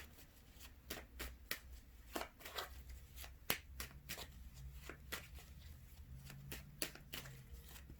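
Tarot cards being handled and shuffled: faint, irregular card clicks and taps, a few a second.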